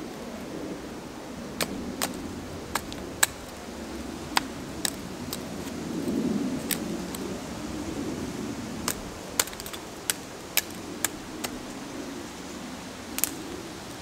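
Sharp snaps of dry wood, about fifteen at irregular spacing with the loudest about three seconds in, as a long dead pole is worked by hand, over a low steady rustling.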